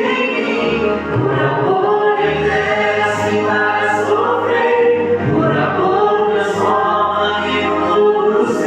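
Portuguese Christian worship song: singing over a held bass line and instrumental backing.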